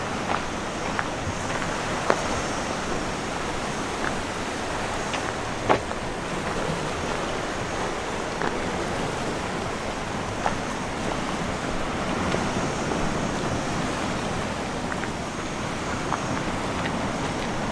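Sea surf washing into a rocky cove, a steady rush of water noise, with a few scattered sharp clicks or knocks.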